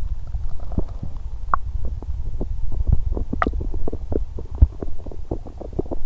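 Human stomach gurgling and rumbling during menstrual stomach cramps. A steady low rumble runs under a quick, irregular run of small pops and gurgles, with one sharper squeak about three and a half seconds in.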